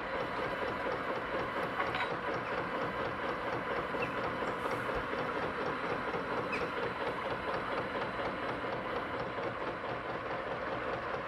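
An older narrowboat's diesel engine chugging steadily under way, a rhythmic boom-boom-boom beat.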